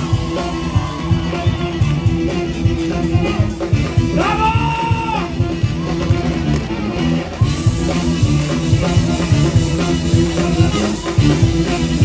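Live band music with drum kit, bass and electric guitar keeping a steady beat, and one long held note about four seconds in.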